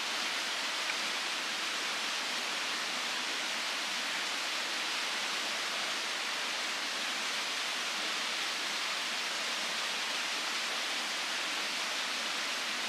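Steady, even rushing hiss with no low rumble and no change in level, outdoor noise of the kind made by wind or running water.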